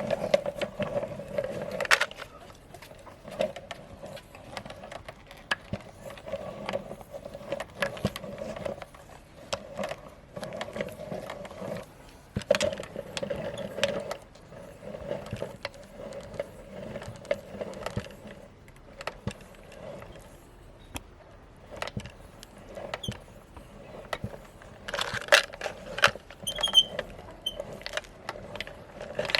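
Meat grinder crushing hard-candy lollipops: a steady hum under a continual run of sharp cracks and crunches, thickest near the end.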